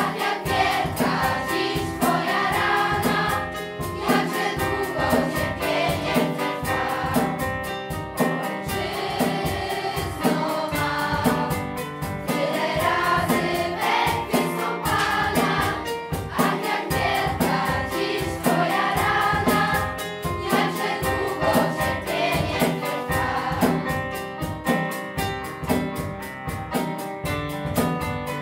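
Children's choir singing with instrumental accompaniment, a drum kit keeping a steady beat.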